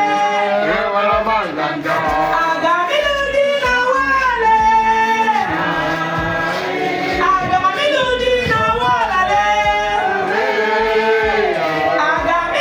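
Several voices singing together over music, in long held and bending notes.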